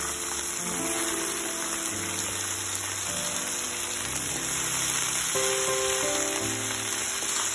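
Chicken pieces sizzling steadily in oil in a frying pan, a dense high hiss, with background piano music playing over it.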